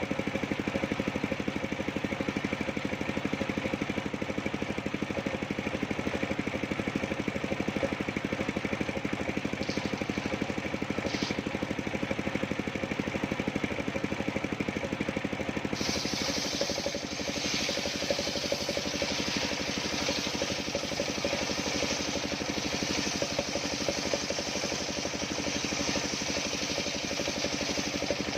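Engine of a homemade circular sawmill running steadily with an even, fast beat. About halfway through, a higher hiss abruptly joins and keeps going.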